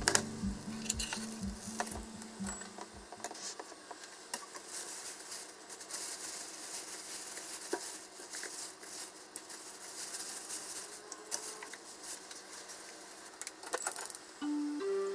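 Oil crackling and sizzling in a hot frying pan, with scattered light clicks of chopsticks against a bowl.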